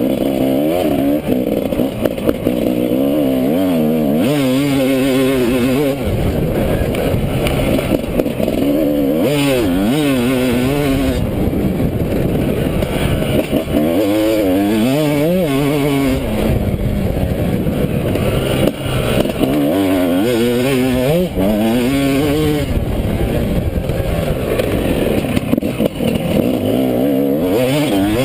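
Yamaha YZ250 two-stroke dirt bike engine ridden hard, its pitch rising and falling again and again as the throttle is opened and rolled off, with several climbs through the revs.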